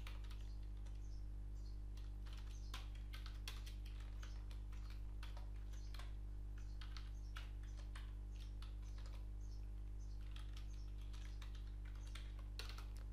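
Keystrokes on a computer keyboard, typing in quick, uneven runs of clicks, over a steady low electrical hum.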